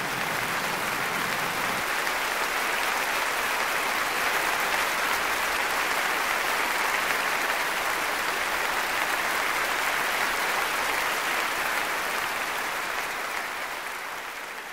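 Audience applauding at length in a reverberant hall, the clapping thinning out and fading near the end.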